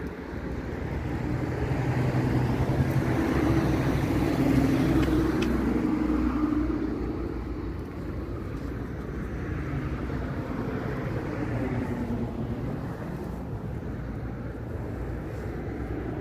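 A car passing close by on the street, its engine and tyre noise swelling over the first few seconds and fading after about seven seconds, over steady traffic noise.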